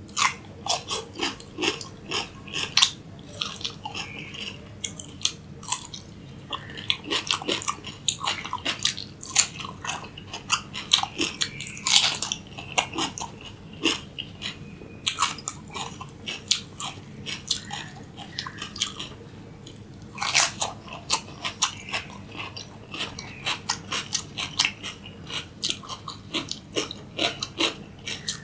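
A person biting and chewing raw cucumber sticks: a rapid run of crisp, wet crunches, with a few short pauses between bites.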